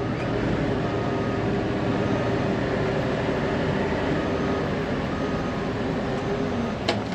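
1999 Fermec TLK760 backhoe's diesel engine running steadily while the loader bucket is worked, heard from inside the cab. One sharp click near the end.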